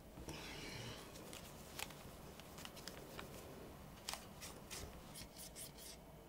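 Faint handling sounds: a soft rustle of a tissue rubbing over a plastic phone handset, then a run of small light clicks and ticks, most of them close together near the end.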